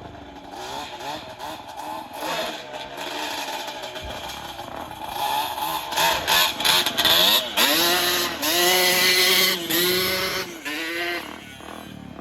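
Quad (ATV) engine revving, growing louder about six seconds in, with the revs rising and dropping several times near the end.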